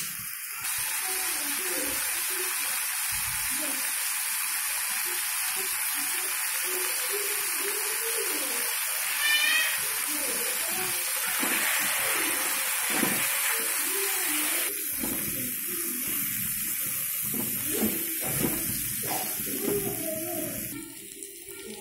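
Chicken pieces sizzling in hot oil in a wok, stirred with a metal spatula. The steady frying hiss drops away near the end.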